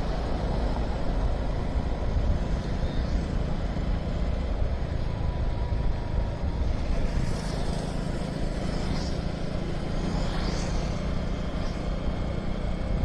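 Motorcycle engine running steadily at cruising speed, with a low rumble of wind and road noise.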